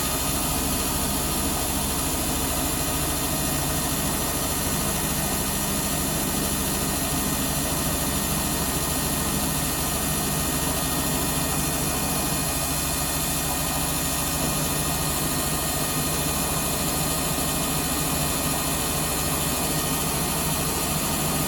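Washing machine motor running steadily with a crackling noise, which others have suggested is worn carbon brushes or the motor itself going bad.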